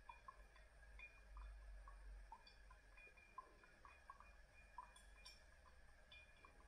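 Faint, irregular drips of brewed coffee falling from a Kalita Wave dripper into the glass server below, about two or three small ticks a second over a low room hum.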